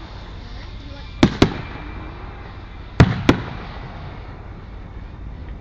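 Fireworks bursting: four sharp bangs in two close pairs, about a second in and again about three seconds in, each trailing off briefly.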